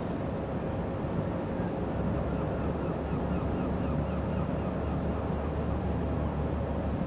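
Steady low rumble of the car-ferry Ostend Spirit's engines carried across the water, mixed with wind noise. A short run of faint high chirps comes in about three seconds in.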